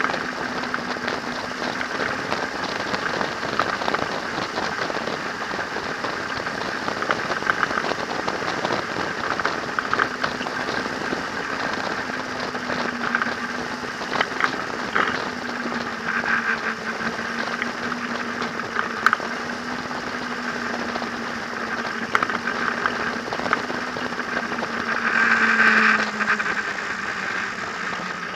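Onboard sound of a motor trike at road speed: the engine runs steadily under a constant rush and crackle of wind on the handlebar-mounted camera's microphone. About 25 seconds in the sound briefly swells louder.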